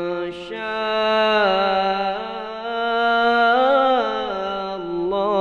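A reciter's voice chanting an Arabic supplication in long, drawn-out melodic notes, with a wavering ornament on one held note a little past halfway.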